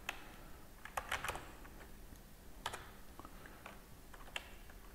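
Computer keyboard keystrokes, faint and unhurried: about seven separate key clicks spaced unevenly over several seconds, as code is typed one letter at a time.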